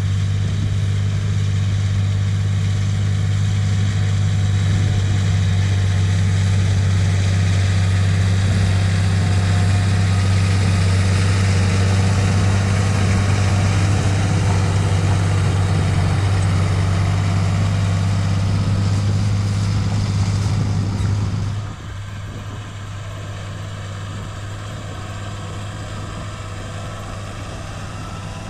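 John Deere 8100 tractor's six-cylinder turbo diesel engine running steadily under load while pulling an offset disc harrow, with a strong low hum. About three-quarters of the way through, the sound drops suddenly to a quieter, duller engine note heard from a camera mounted on the tractor's side.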